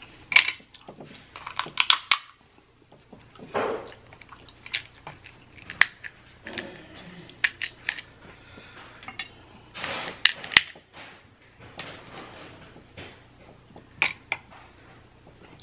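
Dungeness crab leg shells being cracked and snapped apart by hand: a string of sharp, irregular cracks and crunches, some loud, others small, as the shell breaks and the meat is pulled out.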